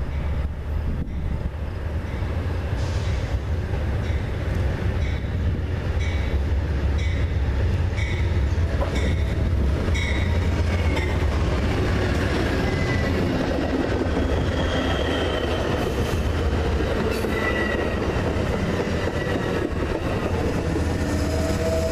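Amtrak Empire Builder passenger train led by a P42DC diesel locomotive pulling past at close range, its engine giving a deep rumble, with the locomotive bell ringing about once a second as it comes in. Once the locomotive is by, the double-deck Superliner cars roll past with high squeals from the wheels.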